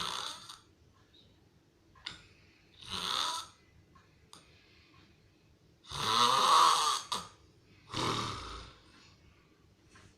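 A person snoring loudly: four snores about two to three seconds apart, the third the longest and loudest.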